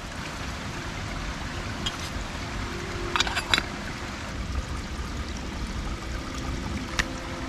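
Small forest creek trickling steadily, with a few light clicks from handling camp gear about three seconds in and again near the end.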